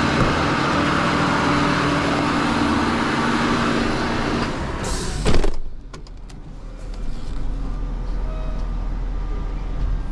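Flatbed tow truck's engine running fast to drive the bed's hydraulics, a steady loud hum with several tones; about five seconds in a short hiss sounds and the truck drops back to a low idle.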